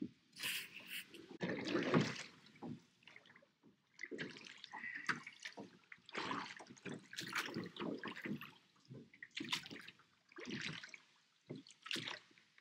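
Wooden oars of a small rowing boat dipping and pulling through lake water, splashing and dripping in a loose rhythm of a stroke about every one to two seconds.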